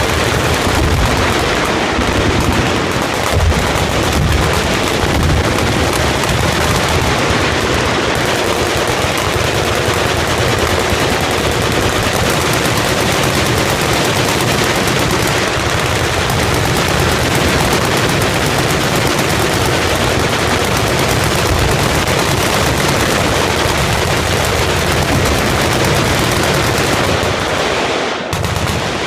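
Massed gunfire from a full firing line of many guns, much of it fully automatic, overlapping into a continuous din without a break. It eases briefly near the end.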